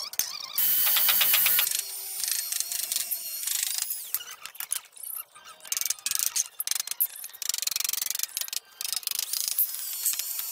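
Mechanical clicking and ratcheting of tool work, with a louder hissing stretch of fast regular ticks about a second in.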